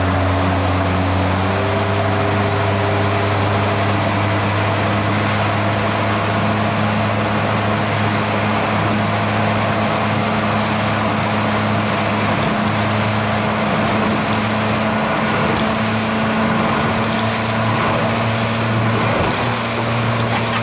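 Motorboat engine running steadily under way, over a loud, even rush of wind and water. Its pitch shifts slightly about a second and a half in, then holds.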